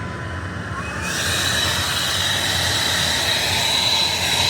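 Air-acetylene brazing torch turned up about a second in, its flame running with a loud, steady hiss and a high whistle on top.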